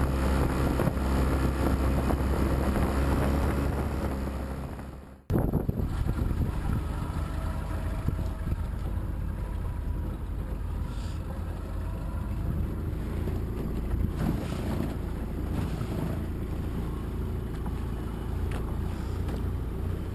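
A motorboat engine running steadily. About five seconds in, the sound fades and cuts off abruptly. A steadier drone with wind on the microphone follows.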